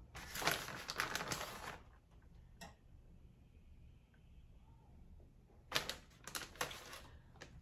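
Crinkling and rustling, as of plastic food packaging being handled, in two bursts: one of about a second and a half near the start and a spell of quick strokes near the end, with a single click between them.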